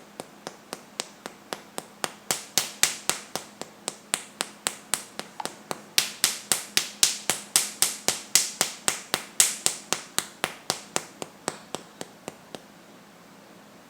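A hand rhythmically patting the upper outer chest at the Zhongfu and Yunmen acupoints, about three to four slaps a second. The slaps are loudest in the middle stretch and stop about twelve and a half seconds in.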